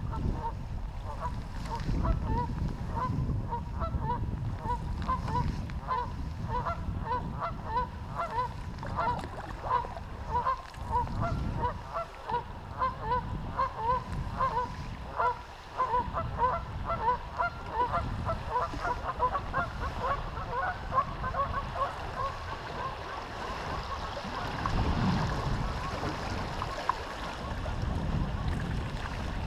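A flock of geese honking: many short calls repeating and overlapping for about twenty seconds, then fading out. Wind rumbles on the microphone underneath, and moving water rushes near the end.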